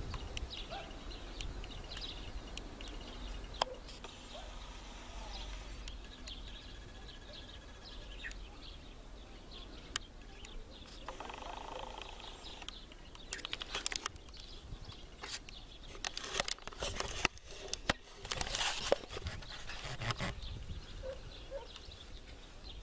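Outdoor ambience: small birds chirping now and then over a steady low wind rumble on the microphone. Several short bursts of crackling noise come in the second half.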